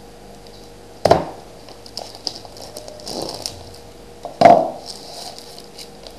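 Cardboard hockey-card box being handled and turned over by hand: two sharp knocks, about a second in and about four and a half seconds in, with light scraping and rustling of the box between them.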